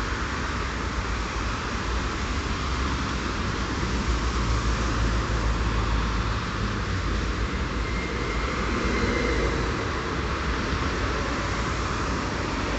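Electric multiple unit train pulling in slowly alongside the platform: a steady deep rumble of wheels and running gear on the track, with a faint high whine briefly about two-thirds of the way through.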